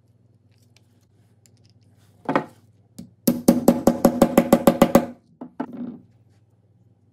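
Metal putty knife tapping and scraping fast against the rim of a metal drill gear housing while red grease is worked into it: a run of about a dozen ringing clicks, roughly seven a second, with short scrapes before and after.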